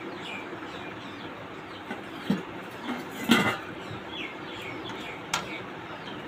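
Small birds chirping in short, repeated notes. A few sharp knocks of a metal spatula against a steel wok as curry is served, the loudest about halfway through.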